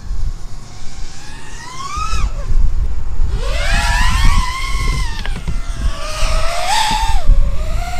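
FPV quadcopter's brushless motors whining, the pitch rising and falling in several swells as the throttle changes, over a low wind rumble on the microphone.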